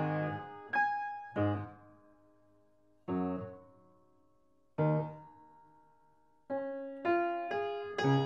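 Background piano music: a few single notes and chords, each left to fade, with long gaps in the middle, then a quicker run of notes from about six and a half seconds in.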